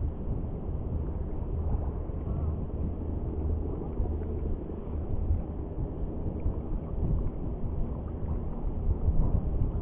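Wind rumbling on the microphone over choppy shallow sea water: a steady low rumble that grows a little louder near the end.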